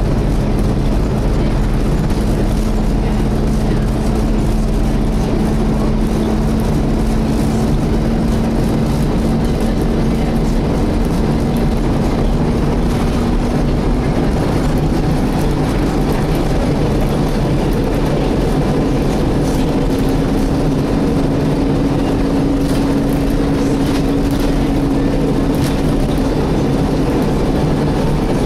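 Volvo B7TL bus's engine cooling fan whining steadily over engine and road rumble, heard from inside the bus; the whine's pitch creeps up gradually through the middle of the stretch.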